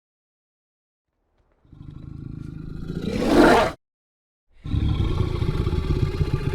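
Carnotaurus dinosaur vocal sound effects: a call that swells to a loud peak and stops suddenly. After a short pause comes a sustained, rough, low growl.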